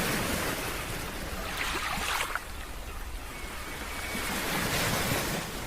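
Ocean surf breaking and washing on a beach: a steady rush of wave noise that swells twice, easing off about two seconds in and building again near the end.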